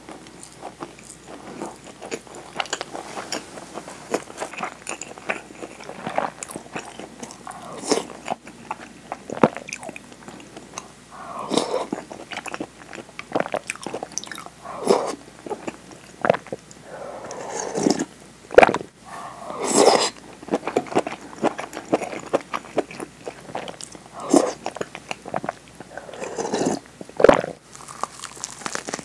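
Close-miked eating sounds: a person chewing with wet mouth sounds and crisp crunching bites at irregular intervals. Near the end comes a bite into a nori-wrapped rice ball.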